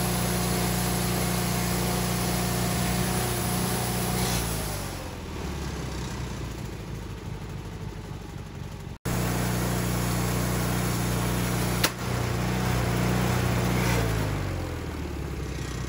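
Portable band sawmill running under load, its engine holding a steady pitch, then slowing twice as the pitch falls away. A single sharp crack comes near the end, in the cut where the band blade breaks.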